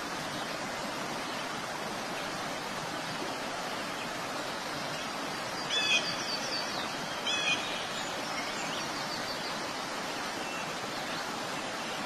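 Small forest stream rushing over rocks in a steady wash of water noise. A bird gives two short calls, about halfway through and again a second and a half later.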